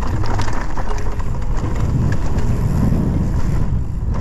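Wind buffeting the camera microphone over the rumble and rattle of a Scott Ransom 920 full-suspension mountain bike rolling fast down a dirt trail, its tyres on dirt and leaves, with a few short knocks from the trail surface.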